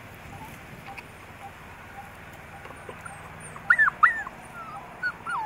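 A dog whimpering: two loud, high whines that rise and fall, a little past halfway, then two or three shorter, fainter ones near the end, over a steady low hiss.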